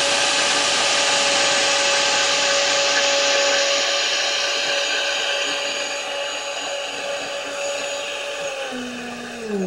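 Countertop blender running at full speed on a liquid mixture: a steady motor hum with a loud rush of whirling liquid. Near the end it is switched off and the motor winds down, its pitch falling.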